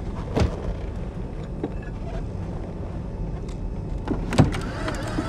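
Steady low rumble of a vehicle's cabin, with a sharp click about half a second in and a louder knock near the end.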